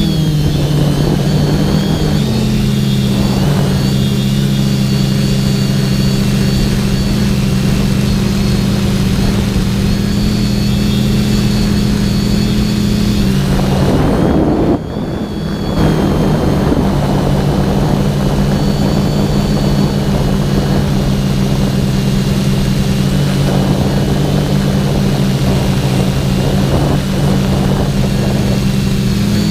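Electric motors and propellers of a TBS Discovery quadcopter, recorded on board: a steady multi-tone buzz over wind rush. About halfway through the buzz breaks up and dips briefly, then comes back steady.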